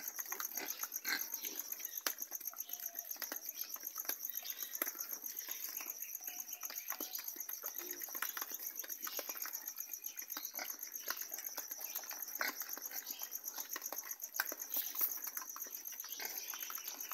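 Piglets eating maize from a trough: a continuous, fast, irregular crunching and smacking of many mouths chewing, over a steady high-pitched buzz.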